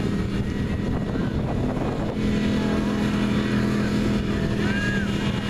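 Mud-bog pickup truck's engine running at a steady pitch, growing louder about two seconds in.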